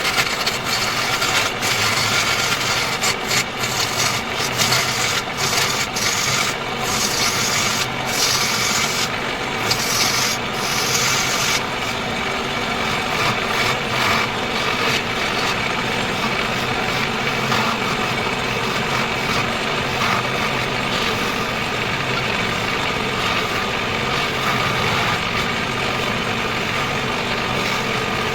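Wood lathe running with a tool scraping and cutting the spinning wood. The cutting is choppy and uneven for about the first twelve seconds, then turns smoother and steadier.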